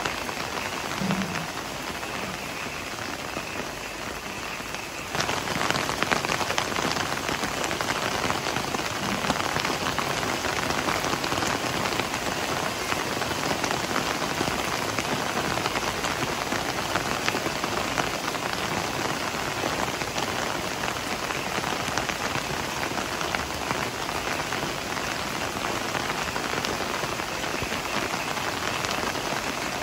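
Heavy rain falling steadily, a dense even wash of noise that gets suddenly louder about five seconds in and holds there.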